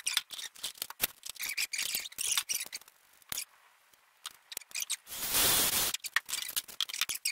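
Clicks and scrapes from handling a hole saw and the round plugs it cut from masonry board, then about five seconds in a brief burst, under a second long, of the cordless drill spinning the hole saw.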